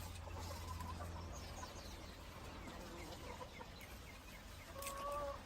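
Chickens clucking: short calls scattered through, with one longer, louder call near the end.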